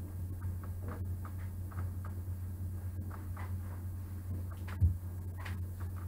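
A wooden figure and toy donkey handled and slid over paper palm leaves on a table: faint ticks and rustles, with one louder thump a little under five seconds in as the figure is set down. A steady low hum runs underneath.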